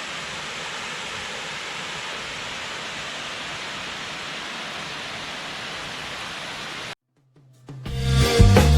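Steady rushing water, a constant hiss-like roar typical of water pouring over a dam or falling water. It cuts off abruptly about seven seconds in, and music starts near the end.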